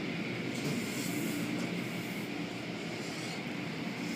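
Automatic car wash heard from inside the car: water spraying against the windows over the steady running of the wash machinery, with a low hum underneath.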